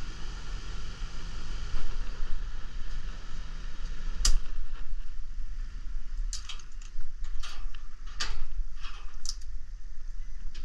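Air-conditioner condenser unit humming steadily with its compressor not fully starting, typical of a compressor that fails to engage. A loud click about four seconds in cuts the hum off, and a few sharp clicks and taps follow.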